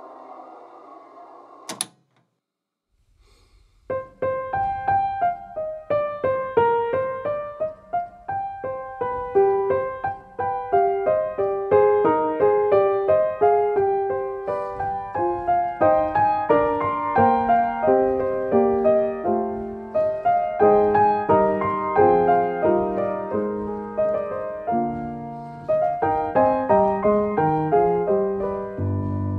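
Background piano music: a melody of separate struck notes that starts about four seconds in, after a short silence. Before that, a soft sustained synth pad fades out and ends with a single click.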